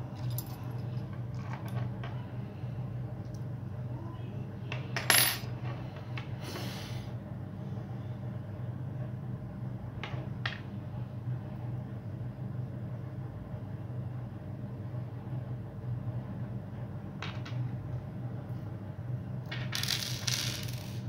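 Small steel screws and metal engine-kit parts clinking together in the hand and tapping on a wooden tabletop. There are a few scattered clinks, a sharper one about five seconds in, and a jingling cluster near the end, over a steady low hum.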